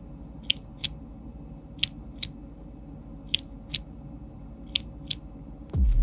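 A single Chosfox x Kailh Arctic Fox clicky switch with keycap pressed and released four times. Each stroke gives a pair of sharp clicks, one going down and one coming back up, about a third of a second apart. A steady low hum runs underneath.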